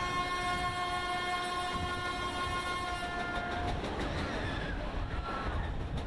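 Bayern Kurve ride's horn sounding one steady tone at top speed, cutting off about three and a half seconds in, over the continuous noise of the ride's cars running round the banked track.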